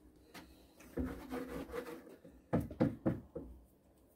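Hard objects being handled: a brief scrape about a second in, then a quick run of three or four dull knocks.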